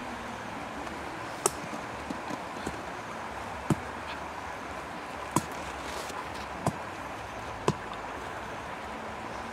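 Charcoal embers crackling under a spit-roasted whole pig: about five sharp, irregularly spaced pops over a steady hiss.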